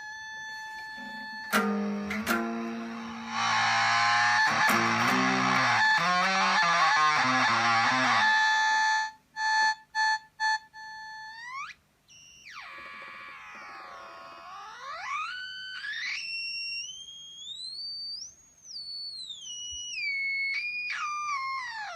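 Electric guitar through a Zvex Fuzz Factory fuzz pedal and a Roland Cube 30 amp. A held squealing tone gives way to a loud, heavily fuzzed burst of notes lasting about six seconds. This breaks off in a few short choppy stabs, and then the pedal's oscillating tones glide down and up in pitch, theremin-like.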